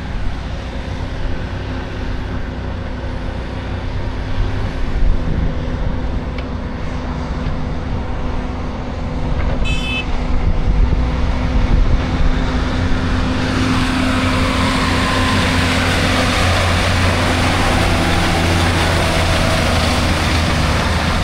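Diesel engines of heavy earthmoving equipment, an excavator and articulated dump trucks, running steadily. About two-thirds of the way through, the engine noise grows louder and fuller as an articulated dump truck runs close by.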